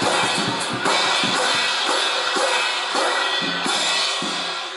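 Live drums beaten in a quick, steady rhythm under a continuous wash of crashing cymbals, with a few low pitched notes near the end.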